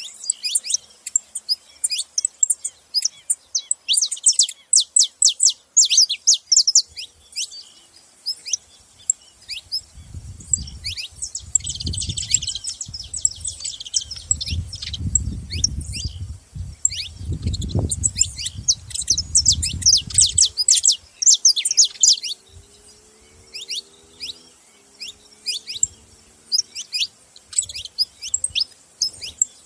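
Several saffron finches chirping, many quick high chirps in busy clusters with short lulls. A low rumble runs underneath from about ten to twenty seconds in.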